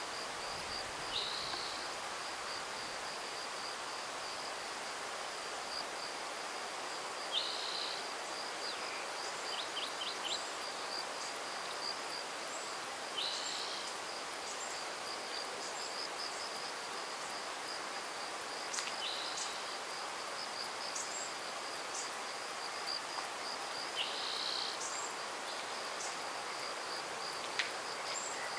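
A steady, high, pulsing insect trill runs throughout, over an even background hiss. A bird's short falling call comes about every five to six seconds, five times in all.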